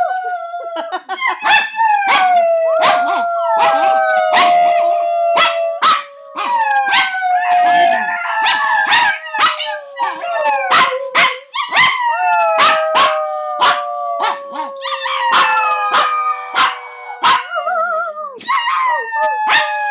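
Dog howling: long, drawn-out howls that slide slowly down in pitch, several in a row, broken by many short sharp sounds.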